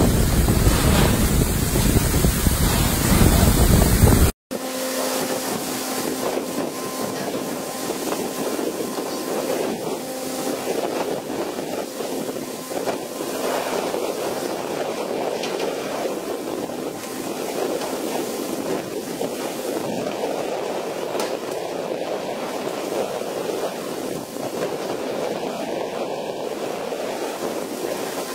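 Wind buffeting the microphone over rushing sea water and spray along the side of a pole-and-line fishing boat. About four seconds in it cuts off abruptly and gives way to a steadier, less heavy wash of sea and boat noise with a faint steady hum underneath.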